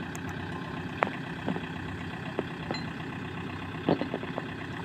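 Farm tractor engine idling steadily, with a few sharp knocks standing out over it, about a second in and again near the end.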